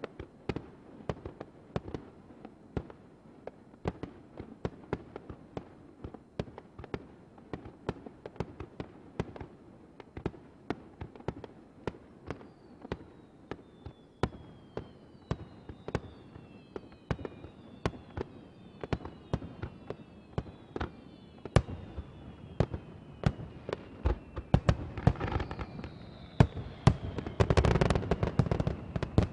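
Aerial fireworks shells bursting in rapid succession: sharp bangs and pops several times a second. From about halfway, several falling whistles run through the bangs. In the last few seconds the bursts thicken into a louder, denser barrage.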